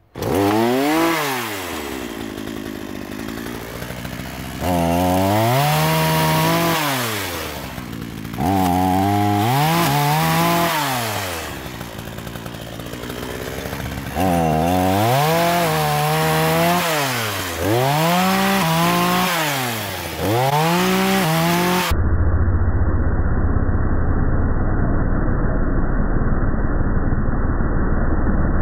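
A small two-stroke gasoline chainsaw, revved up and let back down again and again in bursts of a few seconds as it cuts thin branches. About three-quarters of the way through, the sound switches to a steady, muffled drone.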